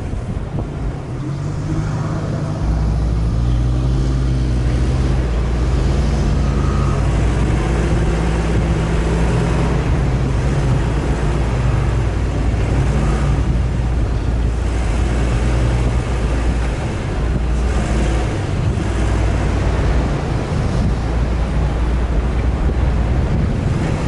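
Off-road 4x4 driving: its engine runs with the pitch rising and falling as it works. A steady deep rumble comes in about three seconds in.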